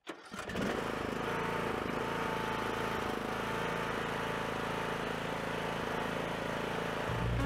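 Troy-Bilt Pony 42 riding lawn mower engine running steadily at an even pitch as the mower pulls away across the grass.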